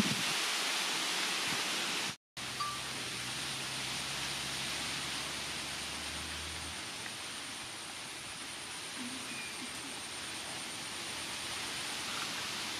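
A steady background hiss, broken by a brief total dropout about two seconds in.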